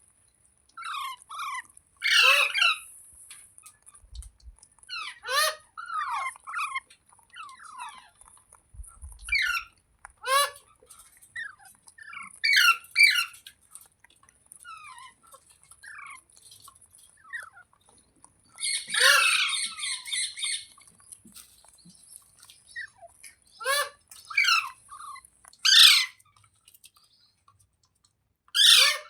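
Pet Indian ringneck parrot squawking: a dozen or so short, sharp calls in irregular bursts, with one longer, louder call about two-thirds of the way through.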